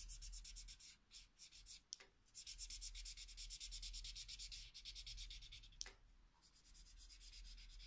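Felt-tip marker rubbing on paper in rapid, even back-and-forth strokes, shading in a drawing, with brief pauses about a second in and about six seconds in.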